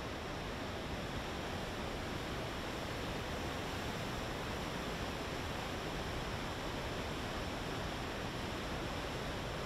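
Steady rush of a flooded river churning through rapids, an even wash of water noise.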